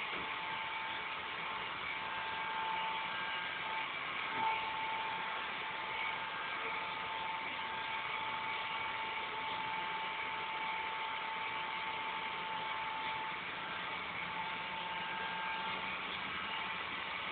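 Robot vacuum cleaner running: a steady whir with a constant high hum from its motor, and one brief knock about four and a half seconds in.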